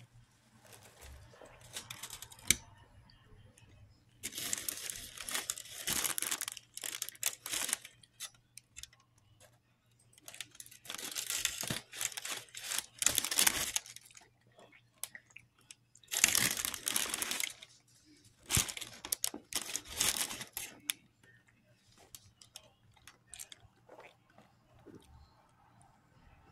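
Aluminium foil wrapper on a burrito crinkling and tearing as it is peeled back. It comes in four main bursts of one to three seconds each, with quieter rustling between them and a single sharp click near the start.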